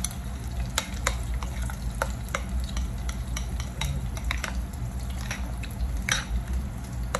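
A metal spoon clinking and scraping irregularly against a bowl while stirring the ground-beef, egg and cornstarch mixture, with oil sizzling steadily in a frying pan underneath.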